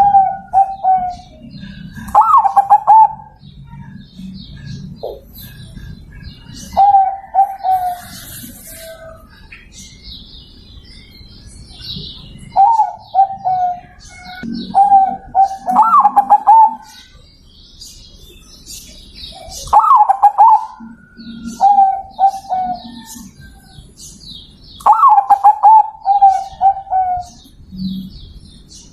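Zebra dove (perkutut) cooing in repeated phrases, about eight times. Each phrase opens with a rising note and runs into a quick stammering series of lower coos. Faint high chirping of small birds sounds in the background.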